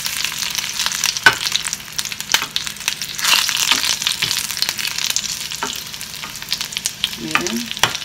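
Dried guajillo and chile de árbol pods sizzling and crackling in hot oil in a stainless steel skillet while being stirred with a wooden spoon, with sharp clicks now and then.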